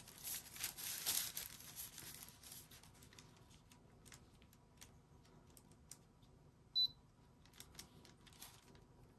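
Sheet of sublimation paper rustling and sliding as it is positioned by hand, fading after a couple of seconds to faint handling ticks. A single short high beep sounds about two-thirds of the way through.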